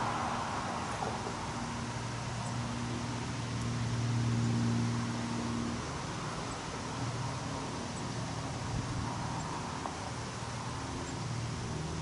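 A motor-vehicle engine running steadily with a low hum that swells about four seconds in and then eases, over general outdoor noise.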